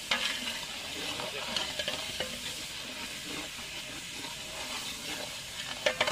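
Masala sizzling steadily in a large aluminium pot as a metal spatula stirs it, scraping and clinking against the pot, with a louder run of clinks near the end. This is the light frying of tomato, garlic and whole spices before water goes in.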